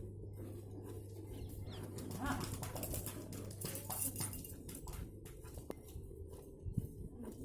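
Streams of milk squirting into a pail during hand milking, a quick irregular run of short squirts, with a low steady hum for the first few seconds.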